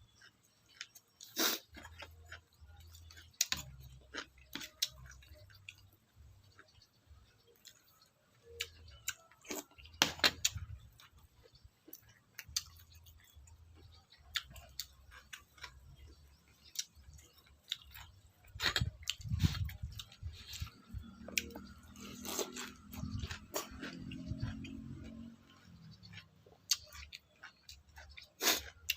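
A person chewing food close to the microphone, with irregular wet clicks and crunches. A low drone joins in for a few seconds near the end.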